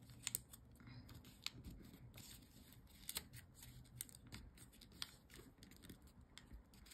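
Faint crinkling and rustling of a sheet of origami paper being folded and creased by hand, with many small scattered ticks as the paper is pressed and tucked.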